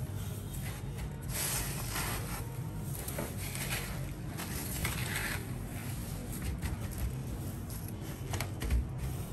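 Dry breadcrumbs rustling and crunching under hands that press and pat them onto a large squid, in irregular scratchy bursts over a steady low hum.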